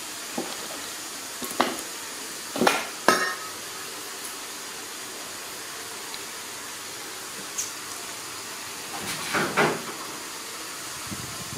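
Irregular clattering knocks, the loudest pair about three seconds in and another cluster near the end, over a steady background hiss.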